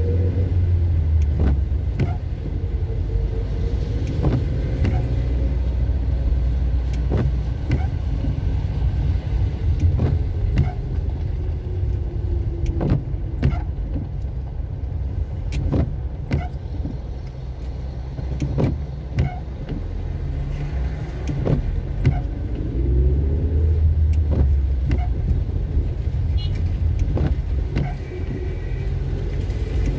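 Car engine and road rumble heard from inside the cabin while driving on wet streets. The engine's pitch rises and falls slowly with changes in speed, and sharp clicks are scattered throughout.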